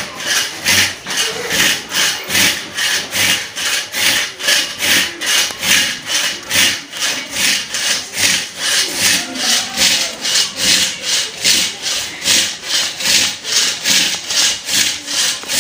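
Hand saw cutting through a firewood log in steady back-and-forth strokes, about two to three a second.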